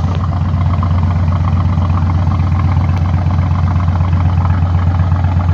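Tugboat diesel engine running steadily under way, a loud low throb with an even fast pulse.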